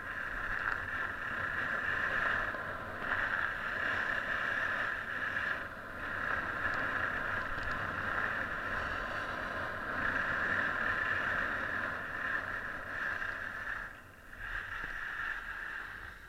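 Skis sliding and carving over groomed snow: a steady hiss that dips briefly a few times and fades as the skier slows near the end.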